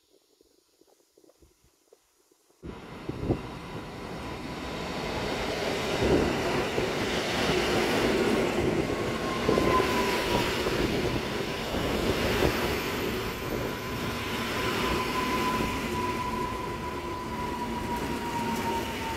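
Koleje Mazowieckie electric commuter train running in along the platform, its wheels and running gear rumbling on the rails. The sound cuts in suddenly after near silence about two and a half seconds in; from about halfway a thin wheel or brake squeal comes in and slowly falls in pitch as the train slows.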